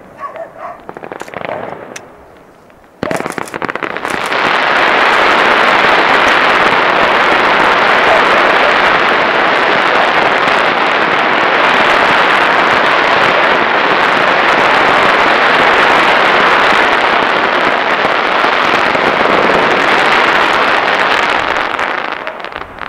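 Fireworks display: a few scattered bangs, then about three seconds in a dense, unbroken barrage of crackling fireworks starts suddenly. It holds loud and steady, then tapers off near the end.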